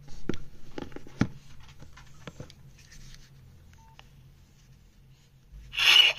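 Sharp plastic clicks of Nokia phone keys being pressed and the phones being handled, with one short beep about four seconds in. Near the end, music starts playing loudly from the Nokia 6233's loudspeaker.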